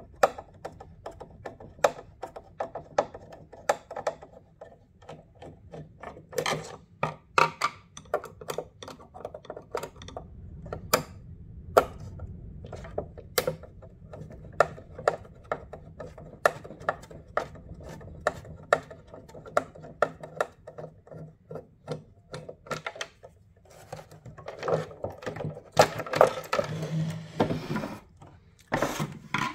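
Scattered small clicks and taps of a T20 Torx driver on plastic headlight parts, undoing the screws that hold a Mazda 6 xenon HID igniter to the low-beam projector. A busier stretch of scraping and handling comes near the end, with a faint steady hum underneath.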